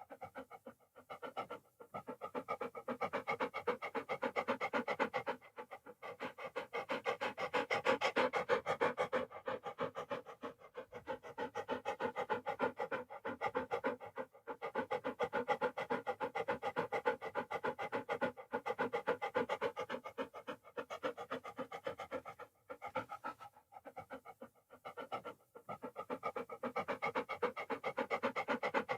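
A dog panting: fast, rhythmic in-and-out breaths that go on almost without a break, with a few brief pauses.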